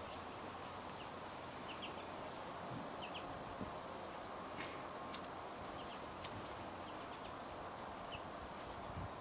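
Small songbirds chirping: short, faint single chips scattered every second or so over a steady background hiss.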